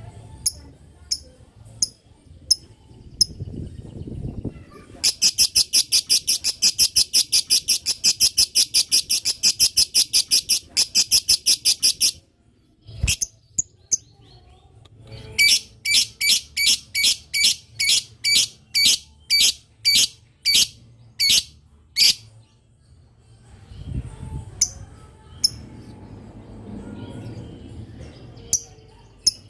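Lovebird giving the long 'ngetik' (typing) chatter: sharp high chirps, first scattered, then a fast run of about seven a second lasting some seven seconds, a short pause, then a slower run of about two a second, then scattered chirps again.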